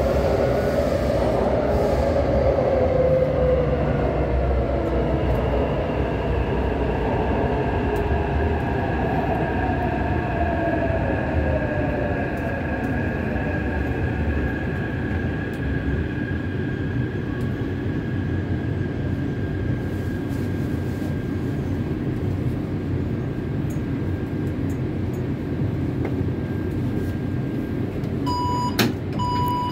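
Taipei Metro C371 train with IGBT-VVVF traction inverters: the motor whine falls steadily in pitch over the rumble of the wheels as the train brakes into a station. Near the end a click is followed by two evenly spaced beeps, the door signal as the doors are about to open.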